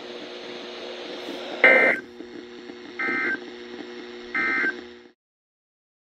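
Three short, screeching data bursts of a NOAA Weather Radio SAME end-of-message code, about a second apart, played through a weather radio's speaker. They mark the end of the required weekly test broadcast. A low steady buzz runs under them, and the sound cuts off suddenly about five seconds in.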